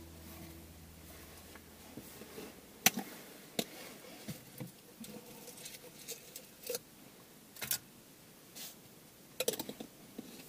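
Scattered light clicks and taps of small cups, lids and utensils being handled on a table. The sharpest knock comes about three seconds in, and there is a quick run of clicks near the end.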